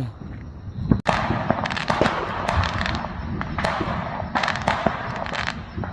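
New Year's fireworks and firecrackers going off all around: a dense, irregular run of overlapping pops and bangs with crackle, after a brief lull about a second in.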